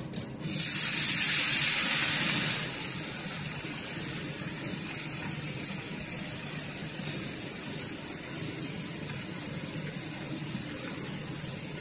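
Chopped fresh dill leaves tipped into hot oil in a frying pan: a loud burst of sizzling about half a second in, easing after a couple of seconds into a steady, quieter sizzle.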